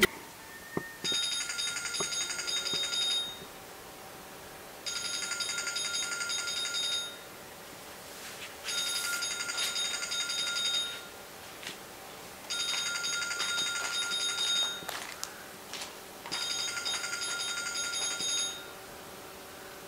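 Phone ringing with a trilling bell-style ringtone: five rings of about two seconds each, coming about every four seconds.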